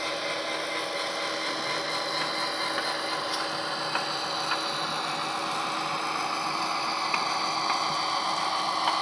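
HO scale SD40 model diesel locomotive running along the track: a steady mechanical hum and hiss that grows slightly louder as it comes closer, with a few faint clicks.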